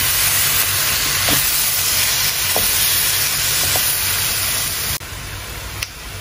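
Boiled pork pieces sizzling in spiced masala in a metal pot while being stirred with a wooden spatula, with a few light knocks of the spatula against the pot. About five seconds in, the sizzle drops suddenly to a quieter level.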